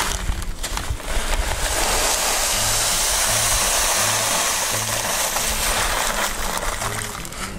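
Silica crystal cat litter pouring from a plastic bag into a plastic litter tray: a steady rushing hiss of granules that eases near the end, over background music.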